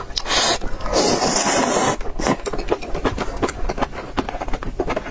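Close-miked slurping and chewing of instant noodles in soup: one long slurp about a second in, then wet chewing with many quick mouth clicks.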